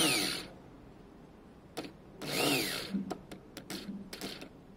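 A Vespa's electric starter motor, bench-tested off a hand-held power wire, spins briefly twice, once right at the start and again about two seconds in, each time with a whine that rises and falls. Short clicks come between and after, as the wire makes and breaks contact. It only spins on a good contact because the power terminal on the motor is snapped off.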